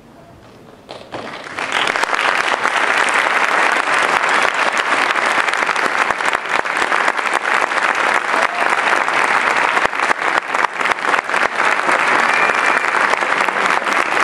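Audience applause, breaking out about a second in and quickly building to dense, steady clapping.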